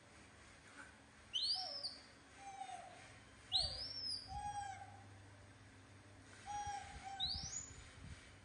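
Young macaque monkeys screaming: three loud, high calls that sweep up and then fall away, a few seconds apart, with shorter, lower squeals between them.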